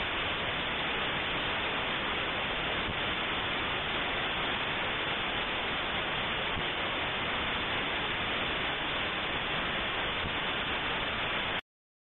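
Steady, even static hiss from a dashcam's noisy audio track, with no engine, road or voice sound standing out. It cuts off abruptly near the end into dead silence.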